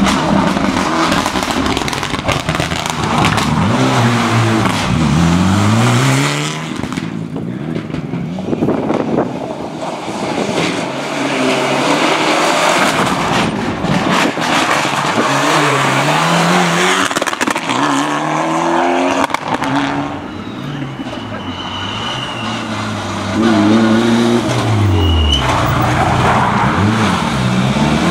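Rally cars driving a stage at full speed, their engines revving hard and dropping in pitch through quick gear changes as they pass, one car after another.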